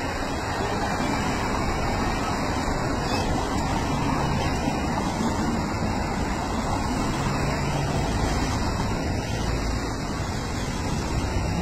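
Cars and an ambulance driving past one after another, a steady rush of engine and tyre noise.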